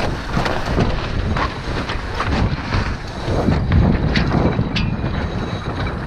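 Wind buffeting the microphone aboard a sailboat during a tack, with scattered sharp clicks and knocks on board.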